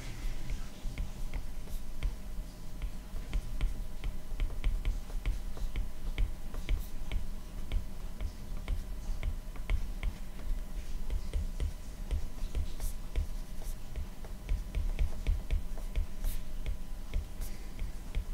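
Stylus tapping and scratching on a tablet's glass screen during handwriting: a steady run of small clicks, several a second, over a low steady hum.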